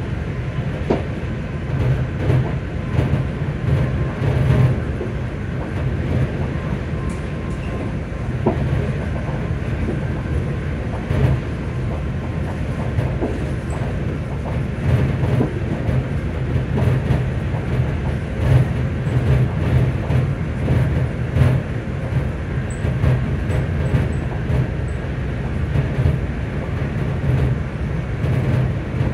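Cabin noise of a ScotRail Class 334 electric multiple unit running at speed: a steady low rumble of wheels on rail, with scattered light clicks from the track.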